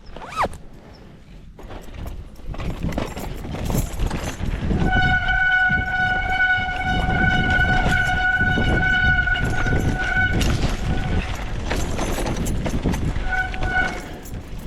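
Mountain bike descending a trail: rumble of wind and tyres, with a steady high-pitched squeal from the disc brakes held for several seconds from about five seconds in, then coming back in short spells near the end as the brakes are applied again.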